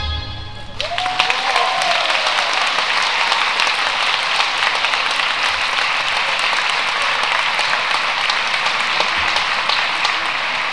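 An audience applauds, the clapping swelling up about a second in and then holding steady. A short voiced whoop rises out of the crowd near the start.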